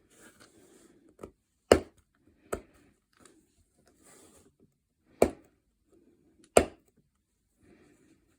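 Small plastic model-kit parts being handled and set or snapped down on a work surface: five sharp clicks, with faint rustling in between.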